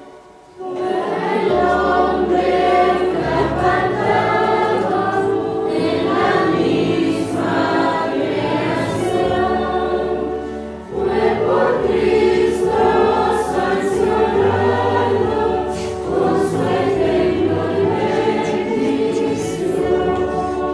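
A choir sings a Christian song over instrumental accompaniment with sustained bass notes. The music starts about half a second in and dips briefly around the middle.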